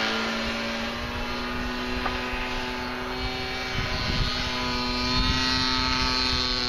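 Radio-controlled model Yak's engine and propeller running at a steady pitch as the plane flies overhead.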